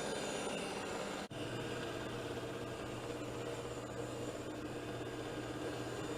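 Shark IQ robot vacuum running, a steady motor hum with brush noise. The sound cuts out for an instant about a second in and comes back with a stronger low hum.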